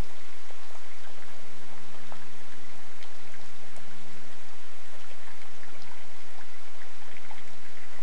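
Steady rain falling, with individual drops ticking, over a low steady hum.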